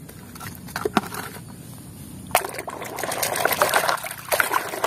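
A plastic toy digger being swished and rinsed in a bucket of muddy water: splashing and trickling water, louder from about two seconds in, with a few light plastic knocks before that.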